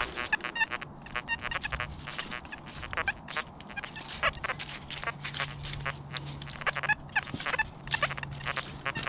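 XP Deus 1 metal detector with a small coil sounding a rapid, irregular string of short buzzy tones as it sweeps over ground thick with trash.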